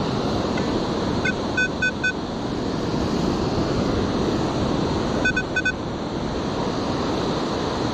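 Metal detector beeping at a target: four quick high beeps just over a second in and three more a little after five seconds. Steady surf and wind noise on the microphone underneath.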